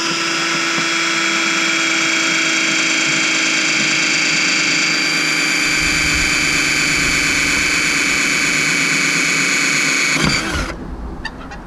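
Power drill running steadily as it bores a hole through the bus's fibreglass roof, with a constant whine, cutting off about ten seconds in.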